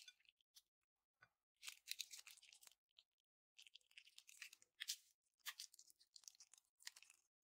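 Soft, crisp crunching and crackling in three bursts of a second or so each, with a few single clicks between them, from slime-making materials being handled.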